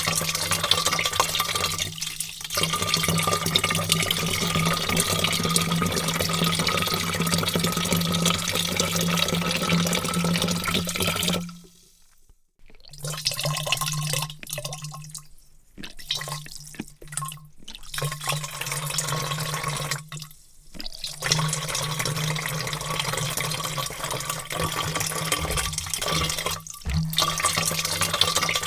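A heavy stream of water pouring steadily into a large vat, with a continuous splashing rush and a low steady hum beneath it. The sound drops out almost completely for about a second about twelve seconds in, and dips briefly a few more times later.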